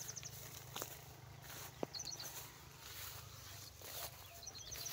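A small bird calling in short, quick runs of high chirps, heard about two seconds in and again near the end, over faint outdoor background noise.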